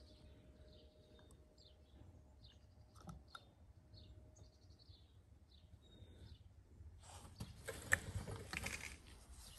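Handling noise as the float bowl of a Kawasaki FH721V carburetor is worked off the carburetor body by gloved hands: a rustle starts about seven seconds in, with a sharp click near eight seconds as the bowl comes free. Before that there are only faint scattered chirps.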